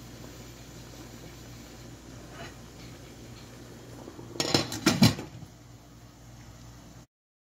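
Glass pot lid being set down onto a stainless steel steamer pot, clattering metal-on-metal in a quick cluster of knocks about four and a half seconds in, over a low steady hum.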